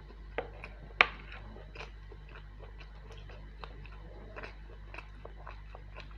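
A person chewing mutton curry and rice close to the microphone, with irregular wet mouth clicks and smacks and a sharp snap about a second in. A faint steady low hum runs underneath.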